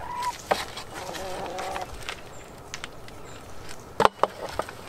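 Hen clucking softly in short calls, then a sharp knock near the end followed by a few small clicks.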